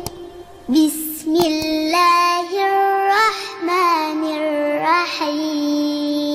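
A child's voice chanting in a melodic Quranic-recitation style, holding long notes with ornamented turns and short pauses between phrases.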